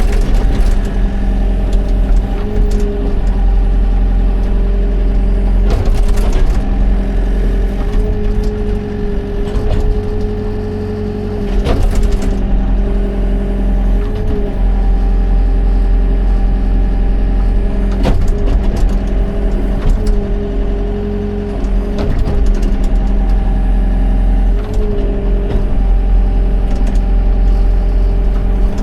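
Excavator's diesel engine running steadily, with a higher whine that comes and goes and several sharp knocks along the way.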